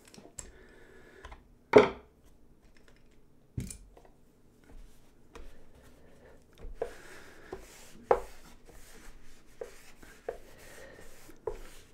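A few sharp knocks of tools being handled on a wooden sharpening board, then a cloth rag wiping over the diamond sharpening plates, a scratchy rubbing broken by light knocks.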